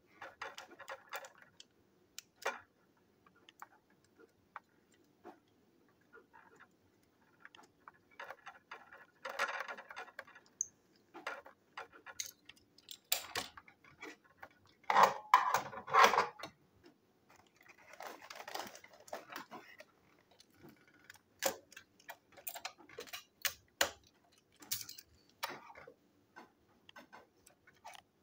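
Plastic toy locomotive parts being handled and fitted together on a tabletop: irregular small clicks, taps and rattles, with a louder clatter about halfway through.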